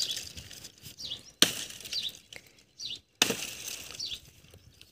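Axe chopping dry branches into wooden stakes: two sharp strikes, about a second and a half and three seconds in. A small bird chirps repeatedly in the background.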